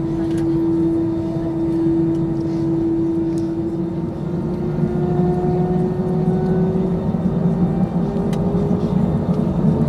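Airbus A319's CFM56 jet engines heard from inside the cabin: a steady drone with a whine that begins to rise slowly in pitch about four seconds in, as the engines spool up on the runway for takeoff.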